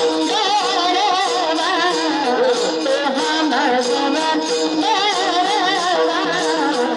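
Devotional kirtan music: a wordless, ornamented sung melody with wavering, sliding notes over steady held notes. Small jingling percussion keeps an even beat underneath.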